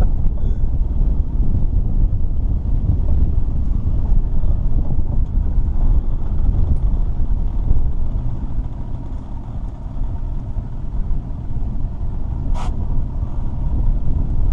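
Steady low rumble of a small fishing boat underway, with one short sharp click about twelve seconds in.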